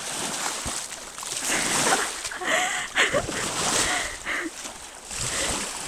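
Water splashing and sloshing around someone wading in shallow water, coming in uneven surges, with indistinct voices in the background.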